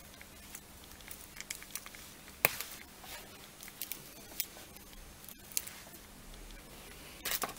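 Scattered small clicks and taps from equipment being handled on a workbench, the sharpest about two and a half seconds in and a short cluster near the end, over a faint steady hum.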